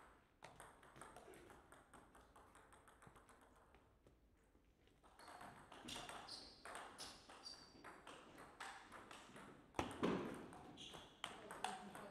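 Table tennis rally: the celluloid-type plastic ball struck by paddles and bouncing on the table, a string of short, sharp pocks, lighter in the first few seconds and quicker from about five seconds in, with one louder hit about ten seconds in.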